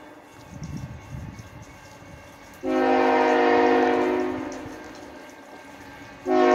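Freight locomotive CN 3008's multi-note air horn blowing: a long blast starts sharply about two and a half seconds in and dies away, then another blast starts abruptly just before the end.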